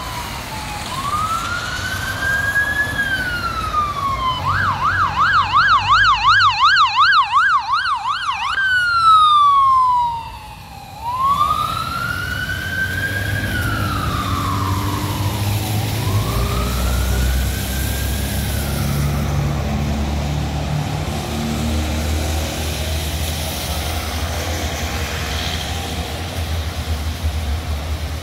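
Ambulance siren on a BC Ambulance Service unit responding through an intersection. It wails, rising and falling about every two seconds, switches to a fast yelp for about four seconds, then goes back to the wail, which fades away as the ambulance moves off. Traffic engines run underneath.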